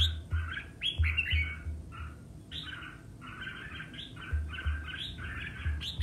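Red-whiskered bulbul singing in short, quick, chattering phrases, one burst after another, with dull low thuds in between.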